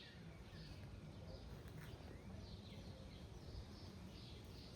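Faint outdoor background: a bird chirping over and over in short high calls, over a low steady rumble.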